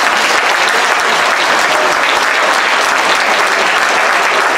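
Crowd applauding: many hands clapping steadily, with no break.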